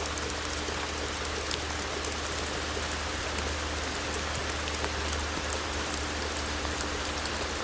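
Steady rain falling in a rainstorm, an even, unbroken hiss, with a steady low rumble underneath.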